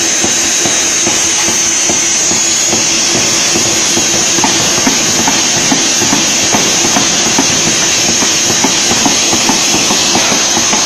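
Pneumatic forging power hammer running and striking hot steel in its ball die, a rapid, steady run of blows over a constant loud hiss and hum from the machine.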